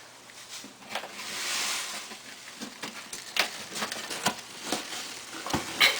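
Light clicks and knocks with a brief scraping rustle about a second in, as of a plastic litter box being handled or scraped.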